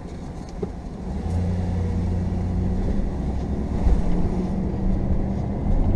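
Camper van engine pulling away and picking up speed, heard from inside the cab. The hum grows louder about a second in and then runs steadily.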